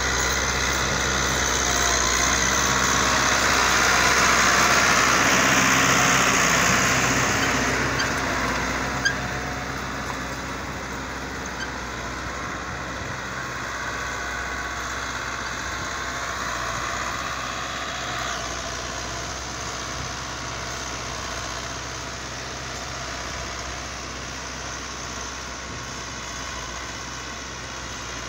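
Euro Ford 5880 tractor engine running steadily under load as it pulls a cultivator set full deep through the soil. It is loudest from about two to eight seconds in, as it passes close, then fades as it moves away. A single sharp click comes about nine seconds in.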